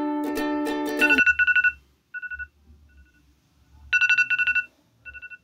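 Background music that stops about a second in, followed by a wake-up alarm beeping in short groups of quick, high electronic beeps. The loudest groups come just after the music stops and about four seconds in, with fainter beeps between them.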